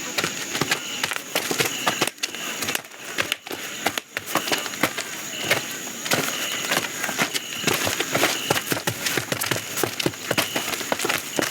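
Film sound effects: a dense run of small clicks, taps and rustles, with short high chirps coming back every second or two over a faint steady high hiss.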